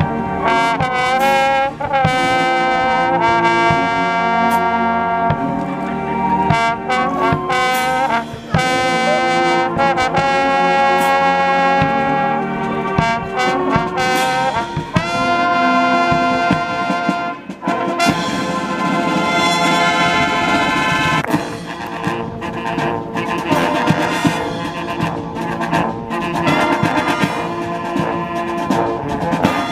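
A marching show band of brass, saxophones, sousaphones and drums plays a tune together. Held chords with scooping slides between notes give way, about 18 seconds in, to a denser passage with stronger drum hits.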